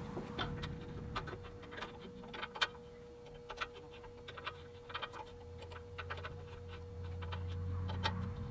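Light, irregular metallic clicks and taps of hand tools as a pressure washer pump is bolted back onto its frame, over a faint steady hum.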